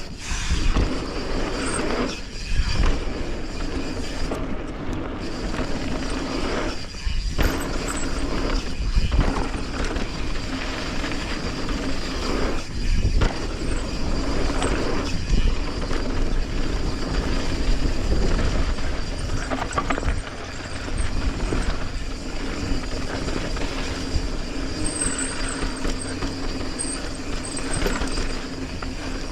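2022 Commencal Clash mountain bike running fast down a dirt trail: tyres rolling over dirt, with constant rattle and knocks from the bike over bumps and wind on the microphone, dipping briefly a few times.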